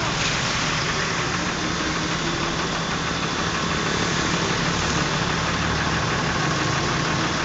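A motor vehicle engine running steadily, a constant low hum under an even hiss.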